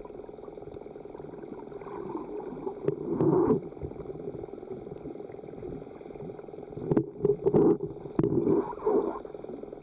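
Muffled underwater rumbling and gurgling over a steady low hum, with louder surges about three seconds in and again near the end, typical of a snorkeler's breathing and bubbles heard through a submerged camera.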